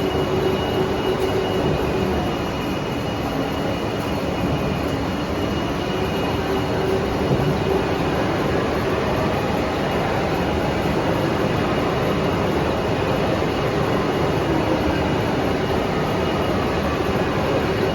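Hwacheon VT-950 MC vertical CNC lathe running: a steady mechanical hum and rush with a constant whine over it, the whine fading for a few seconds a couple of seconds in and then returning.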